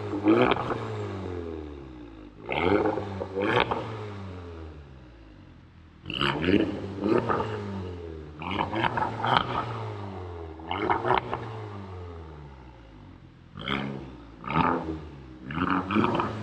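Golf GTI Mk7's turbo four-cylinder revved in repeated quick throttle blips, each rising in pitch and falling back toward idle, about seven times. The exhaust, with its middle muffler replaced by a straight stainless pipe and APR 4-inch tips, gives a mild rumble, not very loud.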